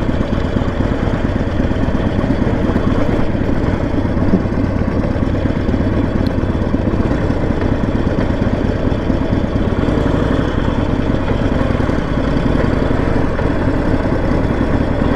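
Harley-Davidson Sportster 1200's V-twin engine running steadily while riding along, at an even loudness throughout.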